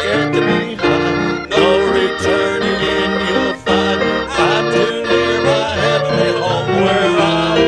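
Live southern gospel band playing a hymn in a steady beat, with piano and Hammond organ chords over acoustic guitar, fiddle and electric bass.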